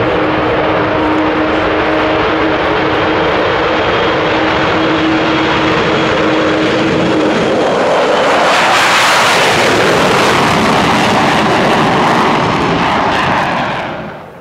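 Avro Vulcan XH558's four Rolls-Royce Olympus turbojets at full take-off power, with the Vulcan's characteristic howl. The noise swells to its loudest as the bomber lifts off close by, about eight seconds in, then fades out quickly near the end.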